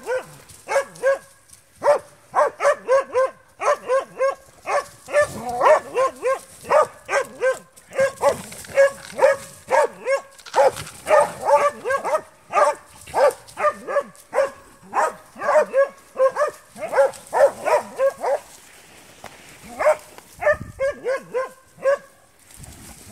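Spitz hunting dog barking in a rapid, steady series of short barks, about three a second, breaking off briefly near the end and then starting again.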